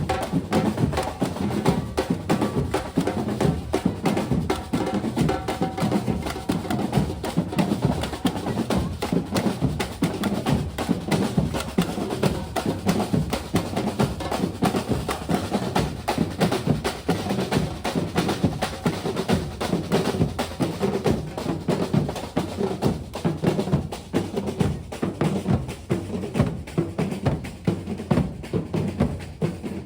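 Batucada samba percussion ensemble playing a steady, driving rhythm: bass drums, snare drums and other drums and hand percussion beating together.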